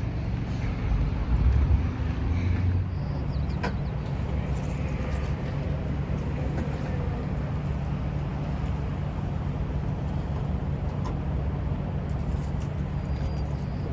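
Steady low rumble of a Subaru car running, a little louder for a second or two near the start, with a single sharp click about four seconds in.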